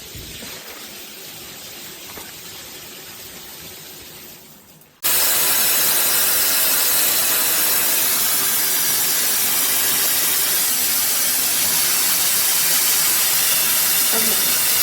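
Water spraying from a Hotel Spa AquaCare handheld shower head, a steady hiss that is fairly soft for about five seconds and then turns suddenly much louder and stays level.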